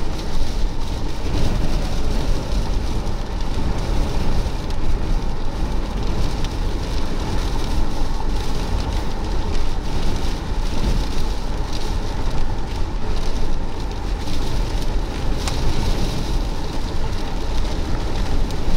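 Steady rushing noise inside a car driving through rain and wind, with a deep rumble of road and wind buffeting and rain hitting the windshield.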